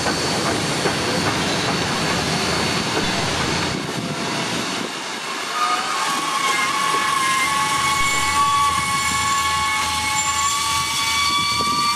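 Heritage passenger carriages rolling past on the rails with wheel clatter. About halfway through, a steady high-pitched squeal in several tones sets in, holds, and drifts slightly upward.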